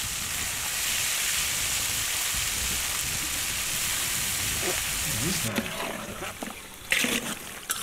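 Food frying in hot oil in a black iron wok, a steady sizzling hiss. About five and a half seconds in it cuts off, followed by quieter scattered knocks and scrapes.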